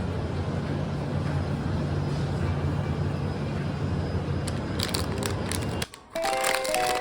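Steady low rumble and hiss of a running vehicle. It cuts off suddenly about six seconds in, and music with held notes starts.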